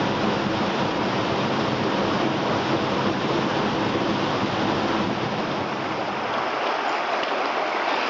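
Rushing water of a mountain stream with waterfalls: a steady, even rush. The deep rumble beneath it drops away about five and a half seconds in.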